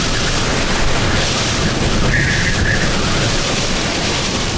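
Hurricane eyewall winds blowing at full force, loud and unbroken, buffeting the microphone, with a brief high whistle about two seconds in.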